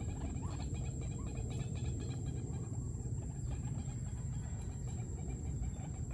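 A decoy white-breasted waterhen in a wire trap cage giving soft clucking calls, over a steady low background rumble and a constant high-pitched whine.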